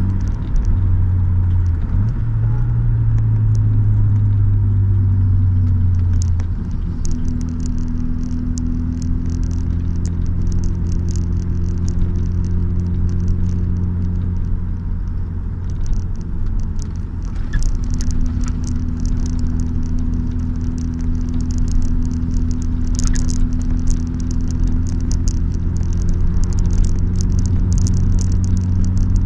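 A classic car's engine heard from inside the cabin while cruising, a steady low drone whose note steps up about two seconds in and settles back around six seconds in, with road and wind noise and scattered crackling in the second half.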